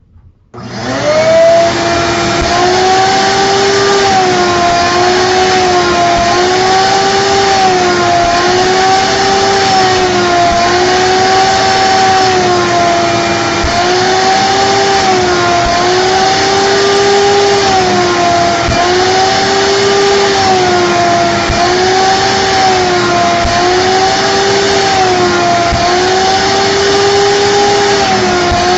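Shop vacuum switched on about half a second in and running steadily, its motor pitch rising and falling about every two seconds as the nozzle is worked in passes over the seat upholstery, sucking up cleaner that was left to soak in.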